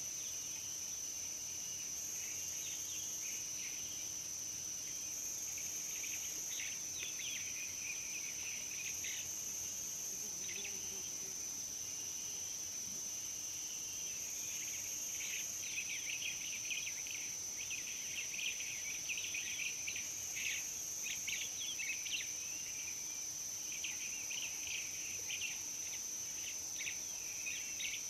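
Steady high-pitched insect trill that swells and softens every couple of seconds, with scattered short chirps that grow busier in the second half.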